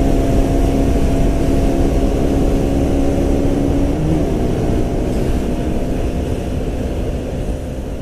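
2017 KTM Duke 125's single-cylinder engine on its stock exhaust, running steadily at cruising speed under a wide rush of wind noise. About four seconds in, the engine note dips briefly, and the whole sound gradually fades toward the end.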